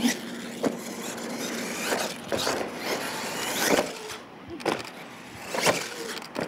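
R/C monster truck's motor revving in repeated rising and falling whines, with several sharp thumps as the truck hits the ramp and lands from its jumps.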